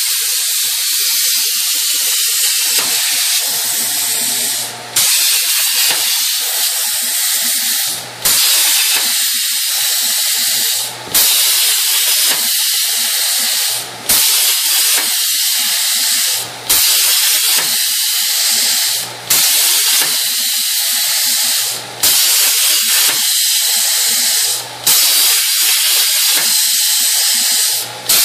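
CNC plasma cutter's torch arc hissing steadily as it cuts steel plate. The hiss cuts out briefly about every three seconds and restarts sharply each time, as the torch stops and re-strikes between one small cut-out and the next.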